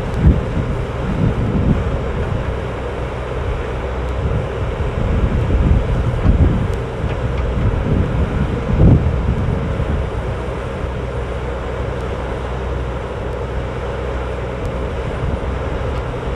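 Cat 304D mini excavator's diesel engine running steadily while the machine works, with wind buffeting the microphone in gusts.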